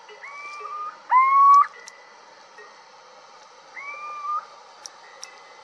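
Little owl calling: mewing hoots that rise and then hold. A loud call comes about a second in, with fainter calls near the start and around four seconds.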